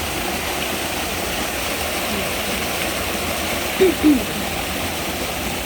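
Steady rushing of floodwater pouring along a stream channel. Two short voice sounds cut in about four seconds in.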